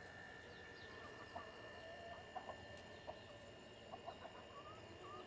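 Backyard chickens clucking faintly in short, scattered calls.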